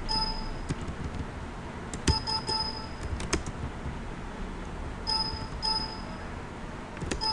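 Keystrokes on a computer keyboard, with short electronic ding beeps from the computer, the console terminal's bell, sounding in little runs: once at the start, three times about two seconds in, twice about five seconds in, and once at the end.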